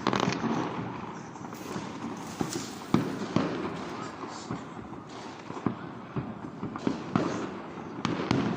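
New Year fireworks and firecrackers going off in an irregular string of sharp bangs and cracks, several close together, the loudest bang about three seconds in.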